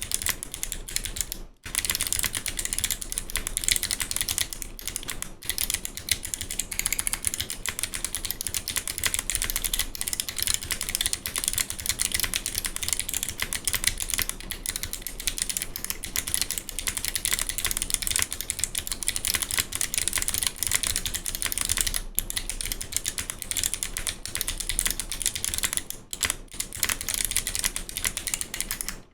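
Fast, continuous typing on a mechanical keyboard with Kailh Box Navy clicky switches ("thick clicks") under GMK keycaps: dense, crisp key clicks with short pauses about a second and a half in and near the end.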